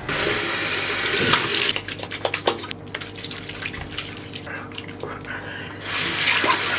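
Water running from a bathroom sink tap. The steady stream stops after about two seconds, leaving scattered splashes and drips while hands wash a face, then runs again near the end.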